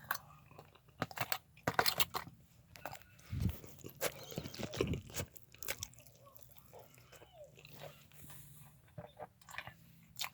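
Close-up sounds of a person eating chicken with a mango sauce: wet chewing, smacking and biting in short irregular bursts, busiest in the first half and sparse later.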